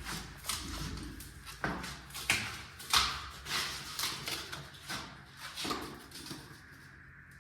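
Irregular scraping strokes of a tool working off dried glue, about a dozen short rasps that thin out and fade near the end.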